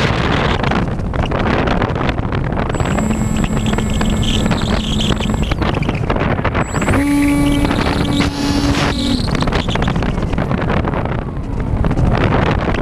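Heavy wind rush over the microphone of a camera riding on a Bixler RC plane in flight. The plane's electric motor and propeller whine at a steady pitch for a couple of seconds, then again at a higher pitch about seven seconds in, as the throttle is opened.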